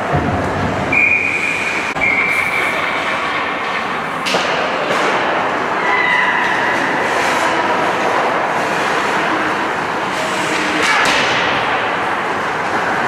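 Ice hockey game sounds in a rink: a steady wash of skates scraping and carving the ice, broken by a few sharp clacks of sticks and puck on the ice and boards.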